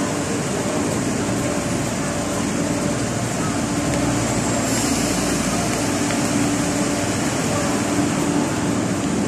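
Steady hum and hiss of a metro platform with an electric train standing at it, doors open, with passengers' voices in the background.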